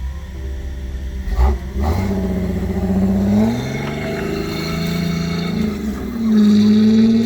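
Off-road vehicle's engine revving under throttle, its pitch climbing, dropping back and climbing again.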